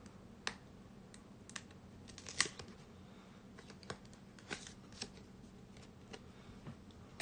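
Faint, scattered crinkling and clicking of hands opening a trading-card package, with one sharper snap about two and a half seconds in.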